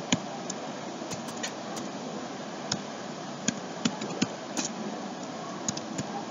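Computer keyboard keys being typed, a dozen or so sharp clicks at irregular, unhurried spacing, over a steady background hiss.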